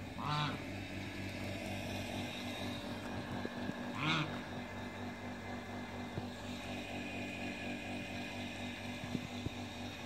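Two short, harsh poultry calls, the first just after the start and the second about four seconds later, over a steady low hum.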